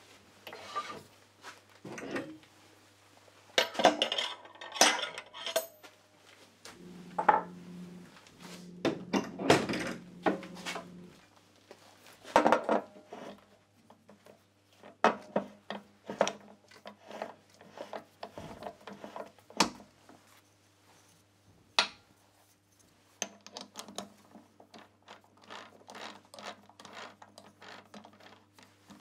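Metal woodturning tools clinking and knocking as they are handled and set down, in irregular scattered clatter over a steady low hum.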